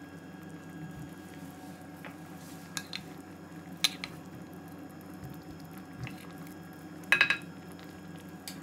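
Metal utensil clinking against a cooking pot of curry. There are a few scattered clicks, then a short cluster of ringing clinks about seven seconds in, the loudest sound, over a steady low background hum.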